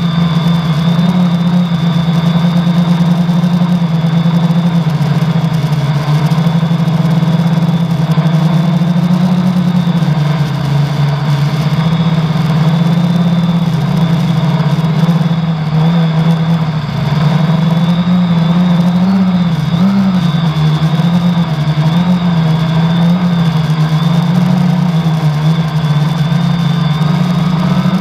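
Drone's 1000kv brushless outrunner motors and 10x4.5 propellers running in flight, heard from the onboard GoPro: a loud steady hum whose pitch wavers with throttle changes, most noticeably in the middle, with a thin high whine held over it. One motor has a bad bearing, which the uploader says can be heard.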